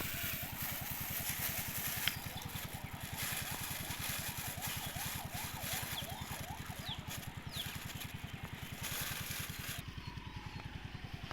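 A small engine running steadily with an even, rapid chugging pulse. A hiss over it stops near the end.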